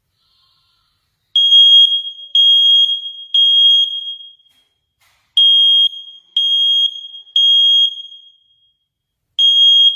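First Alert combination smoke and carbon monoxide alarm sounding its loud, high beep in the three-beep smoke-alarm pattern. Two groups of three beeps, about a second apart with a pause between groups, are followed by a third group starting near the end.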